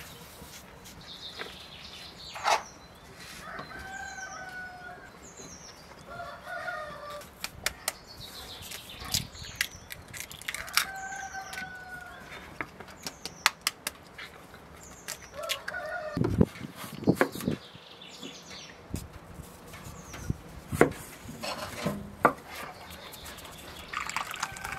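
Domestic chickens calling and clucking in short, slightly falling calls, with small birds chirping high above. Sharp taps and clicks run through the middle as eggs are cracked against the bowl, with a few duller knocks later on.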